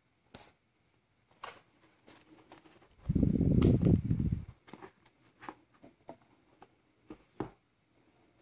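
Hands handling a smartphone in its plastic packaging sleeve: scattered light clicks and taps, with a loud low rubbing rustle lasting about a second and a half in the middle.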